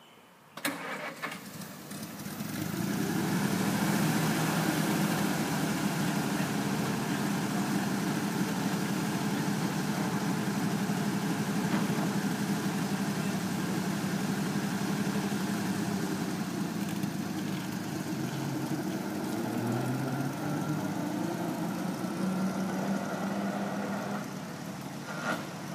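Engine of a 1928 Graham Brothers delivery truck starting up suddenly about half a second in, then running steadily as the truck pulls away.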